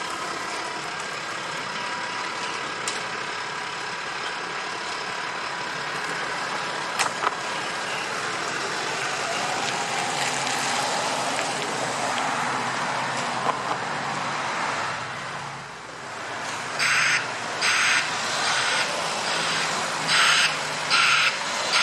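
Fire engine running steadily for most of the stretch. Near the end its reversing alarm starts, giving a run of loud beeps roughly once a second.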